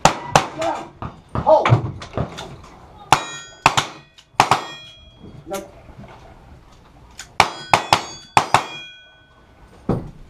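Gunshots fired at steel plate targets, each hit answered by a ringing clang from the steel. About six ringing hits come in two quick groups of two or three, the first around three seconds in and the second about seven seconds in.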